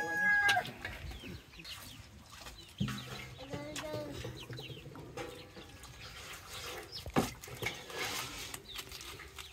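A rooster's crow ending about half a second in, then chickens clucking at intervals. A single sharp knock comes about seven seconds in.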